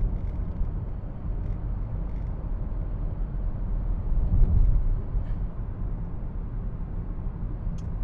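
Steady low rumble of road and engine noise inside a moving car's cabin, swelling briefly about halfway through.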